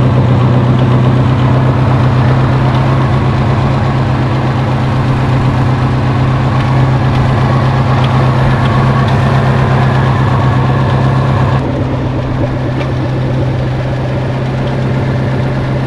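A 2016 Mustang's engine idling steadily, with a loud, even low hum that drops slightly in level about twelve seconds in.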